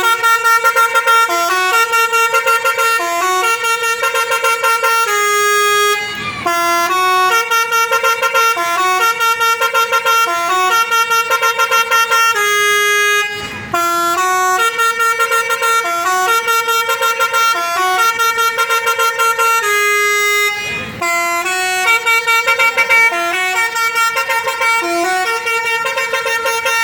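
Basuri 'telolet' multi-tone bus horn playing its tune: a quick run of stepped, pitched horn notes repeated over and over, with a short break about every seven seconds.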